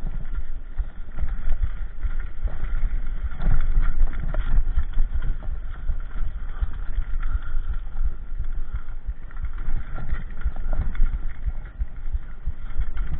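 Mountain bike rattling and jolting over a rough dirt trail, a dense run of irregular knocks and clatter over a steady low rumble of wind on the microphone.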